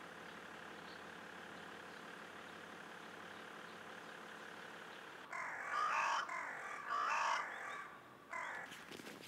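A crow cawing, a few loud caws in close succession starting about five seconds in, over a steady background hum.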